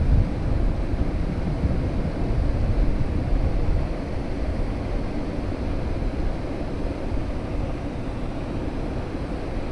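Wind buffeting the microphone, a low rumbling noise that is gustier for the first few seconds and then settles.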